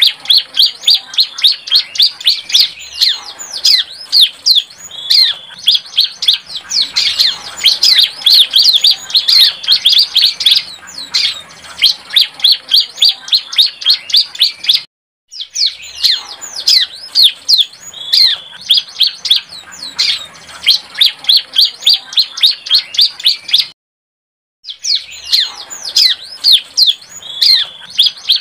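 Young bar-winged prinia (ciblek) singing a rapid series of sharp, high chirps, several a second, in a juvenile bird's song still being learned. The song stops dead twice: briefly about halfway, and for about a second near the end.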